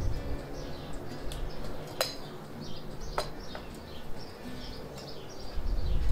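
Metal teaspoon clinking against a small aluminium sugar tin and an enamel mug as sugar is spooned in and stirred: a few sharp clinks, the loudest about two seconds in. Birds chirp in the background, and a low rumble rises near the end.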